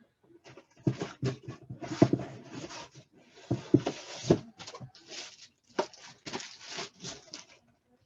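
A run of irregular rustling and scuffing noises with a few sharper knocks, stopping shortly before the end.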